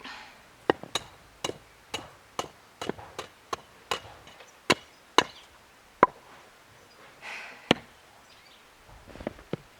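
Wood being chopped: about fifteen sharp strikes of a blade into wood, roughly two a second with uneven gaps.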